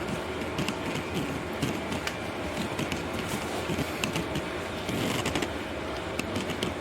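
Small irregular clicks and scrapes of brake caliper slide pins being worked out of their rubber boots, over a steady background hum.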